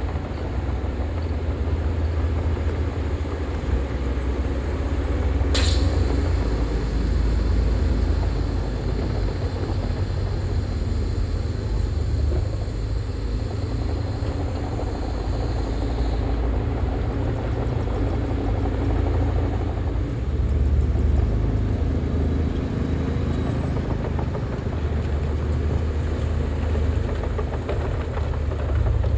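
Heavy earthmoving machinery running with a steady low engine rumble, with one sharp knock about six seconds in.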